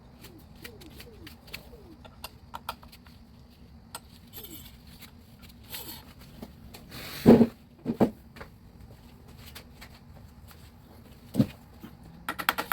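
Hand-tool work on an electric scooter's rear brake: small clicks and rattles, two loud knocks about seven and eight seconds in and another about eleven seconds in, then a fast, even run of clicks near the end.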